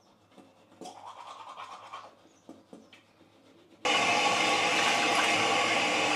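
Faint rustling and a few soft ticks, then about four seconds in a loud, steady whirring noise starts abruptly.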